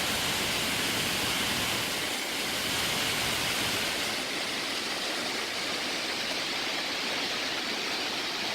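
A steady, even rushing noise with no distinct events, strongest in the upper-middle range.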